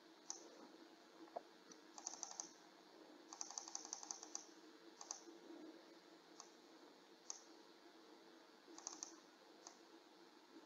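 Faint clicking at a computer: scattered single clicks, with two quick runs of clicks about two seconds in and again around three to four seconds in.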